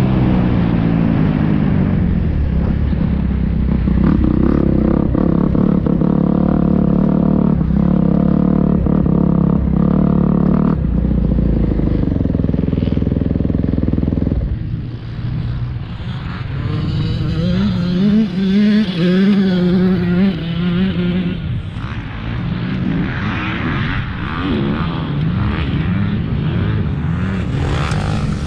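Motocross bike's engine under load, heard from the bike itself: held at high revs for about fourteen seconds, then it drops off briefly and revs up and down with the throttle through the next stretch.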